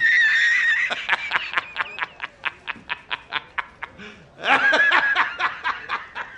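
A man laughing hard in a high-pitched, squealing laugh. It opens with a long held shriek, then breaks into rapid 'ha-ha' pulses about five a second, with another long squeal near the middle.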